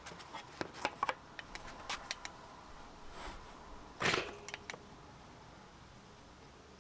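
Light clicks and taps of a steel square and folding rule being handled on a plywood board, with one louder short scrape about four seconds in, then only faint background.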